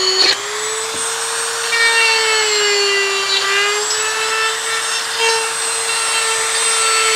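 A handheld rotary tool runs at high speed, cutting a hole in a plastic car kick panel for a tweeter pod. It makes a steady whine that sags slightly in pitch about three seconds in, then recovers.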